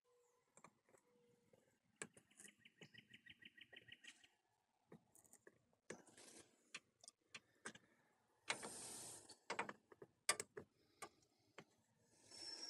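Near silence, broken by faint clicks and small taps of a plastic-welding iron worked against a plastic radiator tank as a nylon zip tie is melted in as filler. A short run of rapid ticks comes about two seconds in, and brief soft hisses come around six, nine and twelve seconds in.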